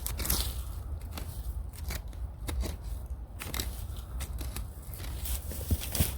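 Irregular crunches, scrapes and crackles of digging for bamboo shoots in the ground, over a steady low rumble.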